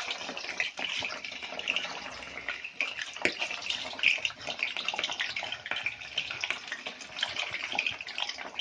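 Snail meat sizzling in hot oil in a wok as it is added a little at a time: a continuous frying hiss full of small crackles and pops, with one sharper pop about three seconds in.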